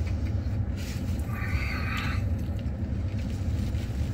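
Steady low rumble of a vehicle engine idling, heard from inside the cab. A brief higher tone comes about a second and a half in.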